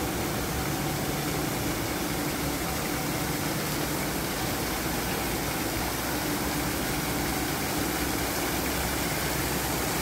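Steady rush of a small artificial waterfall splashing onto rocks and into a shallow pool, with a low steady hum underneath.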